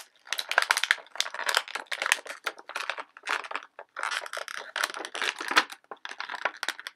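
Clear plastic packaging crinkling and crackling in the hands, in irregular bursts of sharp rustles with short pauses.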